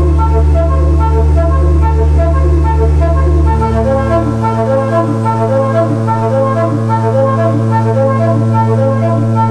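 Church organ flue pipes sounding a quick repeating figure of higher notes over a held bass note; about four seconds in, the bass steps up to a higher note.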